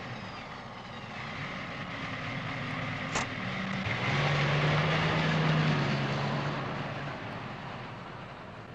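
Car engine running as the car drives off, with tyre and road noise; the hum grows louder about four seconds in and then fades away.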